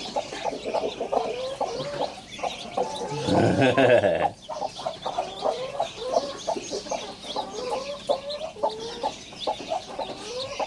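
Thai fighting-breed mother hen clucking over her young chicks, with the chicks peeping, in many short repeated calls. A louder, drawn-out call rises about three seconds in and cuts off just after four seconds.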